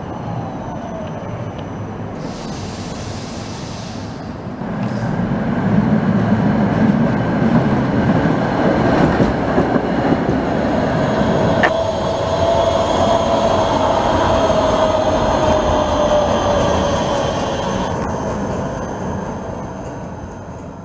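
Tram running past close by on street track, a loud rail rumble that builds about four seconds in and fades near the end. A sharp click about halfway through, then a steady whine that slowly drops in pitch.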